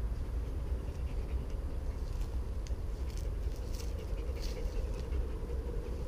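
A dog panting while walking along a dirt path through brush, with footsteps and rustling of grass over a steady low rumble.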